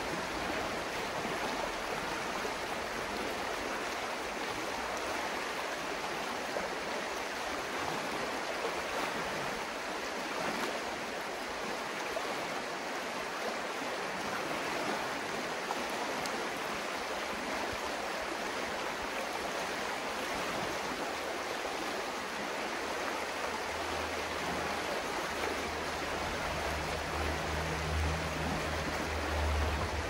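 Stream water babbling steadily in an even rushing wash. A low rumble joins it for the last several seconds.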